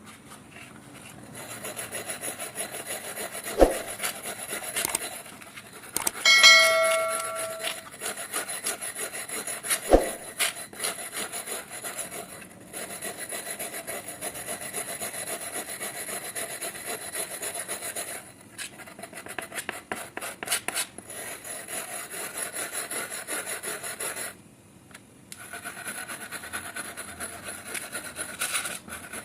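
Steady abrasive scraping on metal as rust is worked off an old steel wrench, pausing briefly a few times. A sharp knock comes twice, with a short metallic ring between them.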